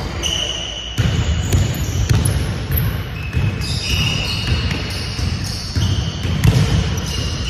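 A basketball bouncing on a hardwood gym floor as it is dribbled and played, with players' footsteps on the court.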